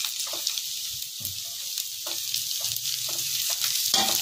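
Sliced green bell peppers sizzling in hot oil with onions and garlic in a kadhai, stirred with a silicone spatula: a steady high hiss with many small taps and scrapes, and a sharper scrape near the end.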